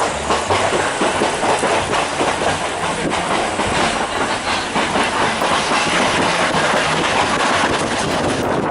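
Train running on the Oigawa Railway behind a C11 steam locomotive: a steady, dense rattle of wheels and carriages on the track.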